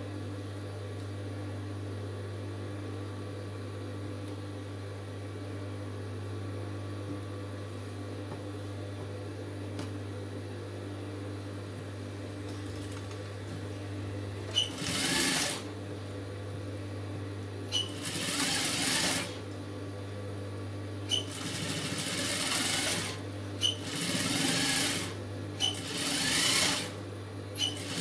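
Industrial-type flat-bed sewing machine stitching a blouse seam in about six short runs of one to two seconds each, starting about halfway in, most runs with a sharp click just before them. A steady low hum underlies the whole stretch.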